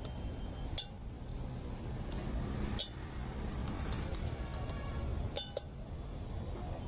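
A steel spoon clinking against stainless-steel tins and a mixing tumbler as jhal muri ingredients are scooped in: a few sharp clinks, two of them close together about five and a half seconds in. A steady low rumble of street traffic runs underneath.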